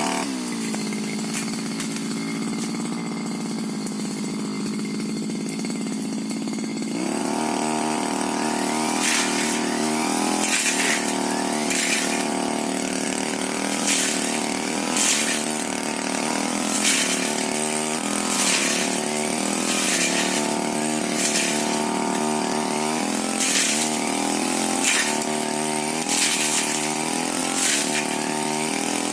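Tiger TG328 brush cutter engine idling low for about seven seconds, then revving up and cutting into scrub: a sharp swish of the blade through brush about once a second, the engine pitch dipping slightly under each cut.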